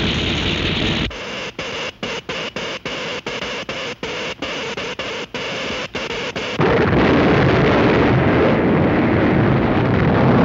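Cartoon sound effects of an electric earthquake machine at work. A loud electric hiss gives way after about a second to crackling that cuts in and out many times. About six and a half seconds in, a loud, steady earthquake rumble takes over as the buildings shake.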